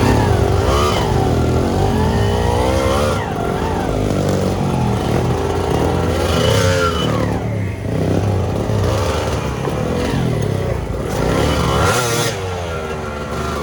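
Trail motorcycle engine revving up and dropping back again and again, several throttle surges in a row, easing off briefly around the middle and again near the end.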